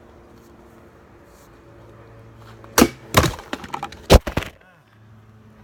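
A sword blade striking a filled plastic water bottle about three seconds in, followed by a run of knocks and clatter, then a second sharp hit and more clattering just after four seconds as the bottle is knocked off its stand.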